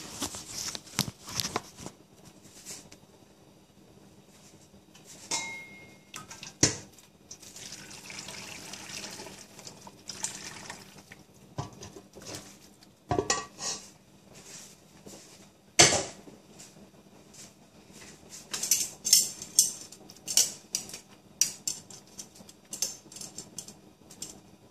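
Stainless steel pots and metal utensils clinking and knocking while broth is transferred from one pot to another. The liquid can be heard pouring for a few seconds about a third of the way in, and a quick run of clinks comes near the end.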